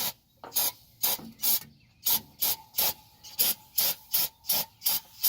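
Aerosol brake cleaner sprayed in short, quick spurts, about two to three hisses a second, onto the oil filter mating surface to clean it before the new filter's O-ring goes on.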